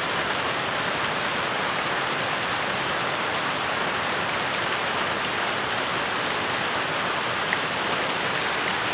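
Heavy rain falling steadily on trees and leaf-covered ground, an even hiss.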